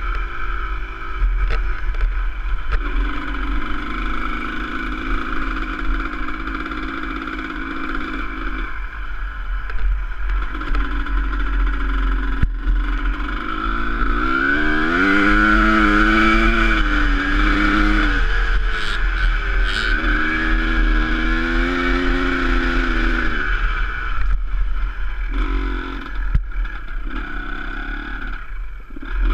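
Enduro dirt bike engine running under way, its revs climbing and dropping several times, highest about halfway through, over a steady low wind rumble on the microphone.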